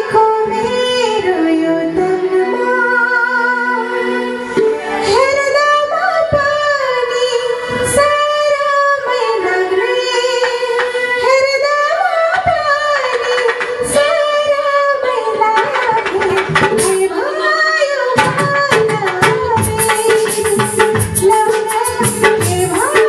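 A woman singing a Nepali folk song live through a microphone and PA. She is backed by a small band on keyboard and drum, with regular drum strokes running under the melody.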